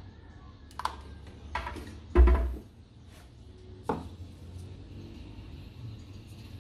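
Tools and a metal hammer head being handled and set down on a workbench: four short knocks and taps, the loudest a dull thud about two seconds in, over a faint steady hum.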